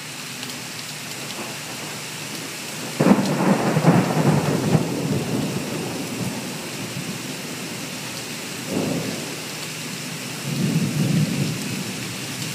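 Heavy rain falling steadily. A sudden loud thunderclap comes about three seconds in and rumbles on for a few seconds, and two weaker rolls of thunder follow later.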